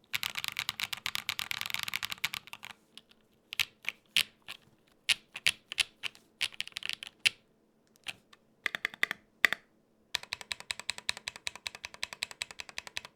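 Typing on a Gok 7V 75% custom mechanical keyboard with lubed tactile switches: a fast run of keystrokes, then slower scattered presses, then another quick burst of typing that stops abruptly.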